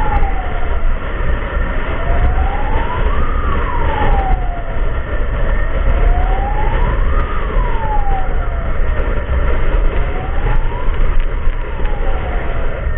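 Emergency-vehicle siren in a slow wail, its pitch rising and falling evenly about once every four seconds, over a heavy low rumble.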